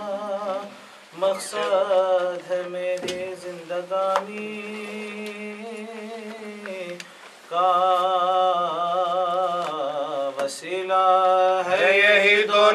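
A man chanting a nauha, an Urdu mourning lament, into a microphone without words being picked out: long held notes with a wavering pitch, sung in phrases with short breaks for breath about a second in and about seven seconds in.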